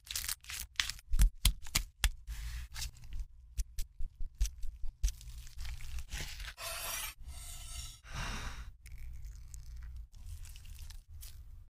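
Close-up food-preparation sounds on a wooden cutting board while making a sushi roll. A quick run of sharp knife taps and cuts fills the first few seconds, then a few longer scraping, tearing rustles follow as the ingredients are handled.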